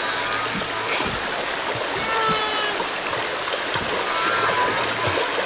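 Water splashing and lapping as a small animal paddles and struggles in the water. A few short, high-pitched calls are heard over it, about two and four seconds in.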